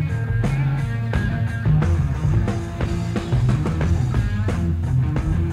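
Live rock band playing: electric guitar with bass and drum kit.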